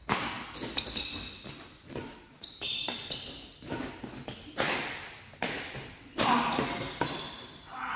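Badminton rackets striking the shuttlecock back and forth in a fast doubles rally, sharp hits a little under a second apart, each echoing in the large hall.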